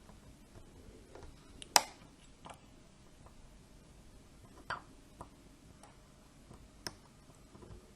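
Scattered small metallic clicks and taps of a lock pick and tension tool working the pins of a small dimple padlock, with one sharper click about two seconds in and lighter ones later.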